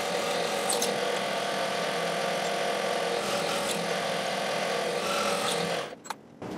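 Benchtop milling machine's spindle running steadily while a number 7 twist drill bores holes in an aluminium plate, a steady machine whine. It stops abruptly near the end.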